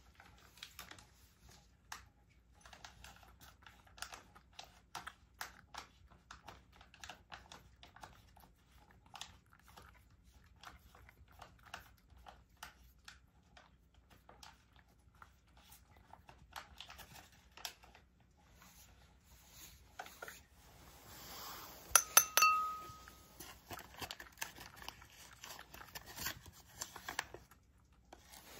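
Cat eating wet food and dry kibble from a ceramic bowl: a steady run of small licking, chewing and crunching ticks. About 21 seconds in comes a rustle, then a few sharp clinks on the bowl, one ringing briefly; these are the loudest sounds.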